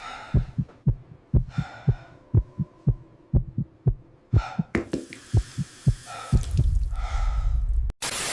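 A quick run of dull low thumps, about three a second, with breathy noises between some of them and a low rumble near the end.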